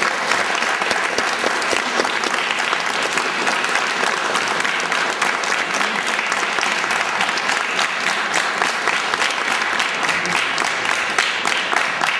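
Audience applauding steadily, a dense patter of many hands clapping at an even level throughout.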